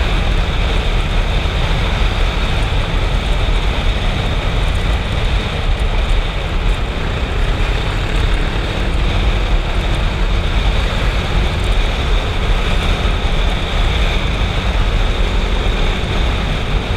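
Motorcycle riding at speed, about 108 km/h: a steady rush of wind over the microphone with the engine's drone underneath.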